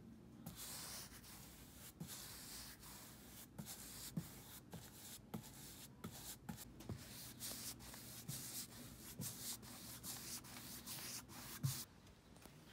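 Faint paintbrush strokes on the wooden slats of a roll-top desk: a soft hiss with each back-and-forth stroke and short breaks between them. The brushing stops just before the end.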